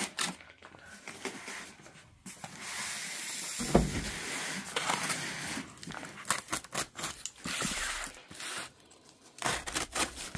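Utility knife slicing through the packing tape on a cardboard box, with tape tearing, cardboard rustling and scraping, and short clicks. A single thump comes a little under four seconds in.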